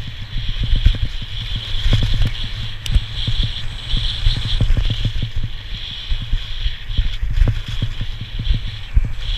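Wind buffeting the microphone of a skier's head-mounted camera during a fast descent, with the steady hiss of skis sliding over packed snow.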